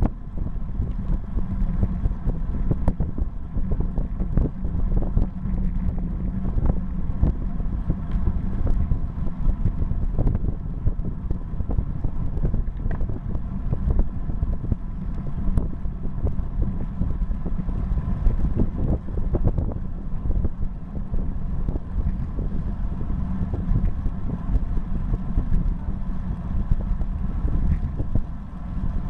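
Wind buffeting a bike-mounted camera's microphone and tyres humming on asphalt while riding a road bike at about 30 km/h, with frequent small clicks.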